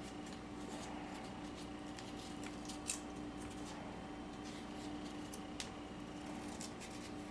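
Faint scraping and clicking of a knife peeling a squash, in scattered short strokes, over a steady low electrical hum.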